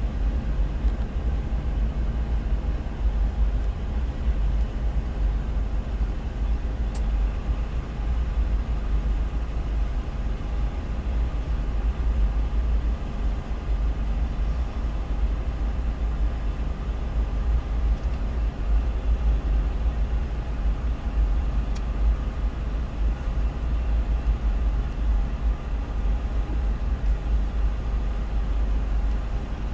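Freight train cars (tank cars and covered hoppers) rolling past, heard from inside a car as a steady low rumble.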